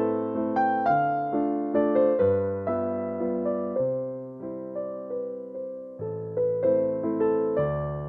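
Background music: gentle piano or electric piano playing chords and a slow melody, each note struck and left to fade.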